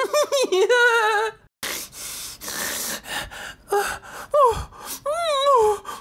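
High, wavering squeaky vocal cries and breathy gasps, cartoon baby-bird voice effects. Squeaks fill the first second and a half, then come about two seconds of breathy hissing gasps, then more squeaky cries that glide up and down near the end.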